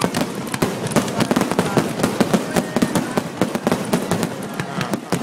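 Fireworks going off in a dense, rapid string of bangs and pops, many each second, with no let-up.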